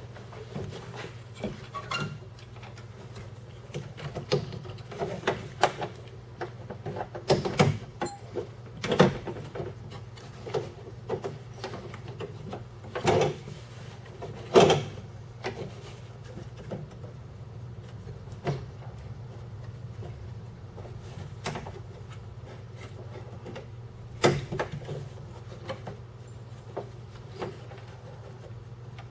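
Scattered clicks, taps and rattles of plastic and metal parts being handled inside a pickup truck door as the inside door handle and its linkage rods are clipped back in. The loudest knocks come a little before and after the middle, over a steady low hum.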